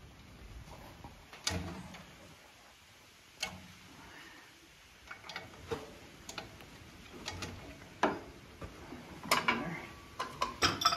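Scattered sharp metallic clicks and knocks, about a dozen, as hydraulic hose ends are handled and fitted into the tractor's rear remote quick couplers, with a quick cluster near the end.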